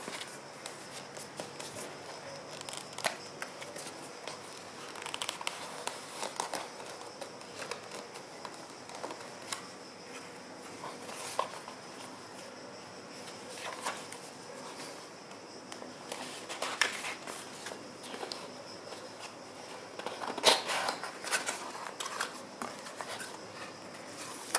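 Hands handling and opening a small cardboard box: scattered taps, scrapes and rustles of cardboard, with a louder run of them about twenty seconds in.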